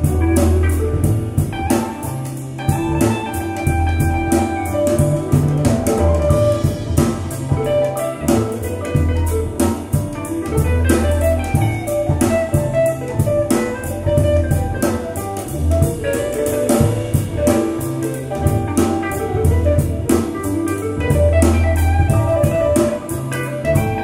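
Jazz playing through a pair of hi-fi loudspeakers, with guitar, a prominent bass line and a drum kit keeping a steady beat, picked up in the room by microphones about ten feet away.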